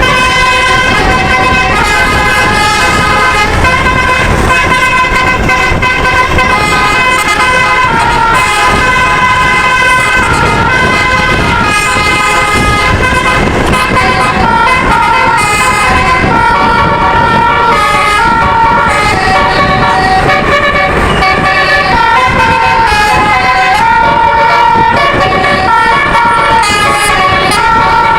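Bus telolet musical air horn playing a long melody of sustained horn notes that step up and down in pitch, over a low noisy rumble.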